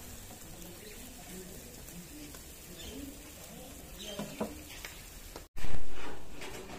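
Whole fish sizzling over a charcoal grill in wire baskets, a steady hiss with faint chirping and murmuring behind it and a few clicks. About five and a half seconds in, a sudden loud noise cuts in and fades over about a second.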